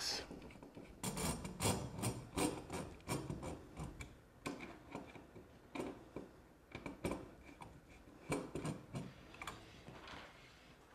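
Phillips screwdriver driving the screws that fasten a metal ceiling-fan bracket to the electrical box: a run of short, irregular clicks and scrapes.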